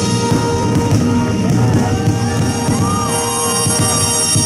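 Loud show music over loudspeakers, with many short low thumps from fireworks bursting under it.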